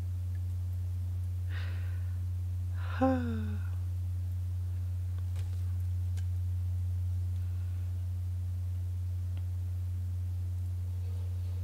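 A steady low hum throughout, with a person's short sigh falling in pitch about three seconds in; a soft breathy sound comes just before it and a faint click a couple of seconds after.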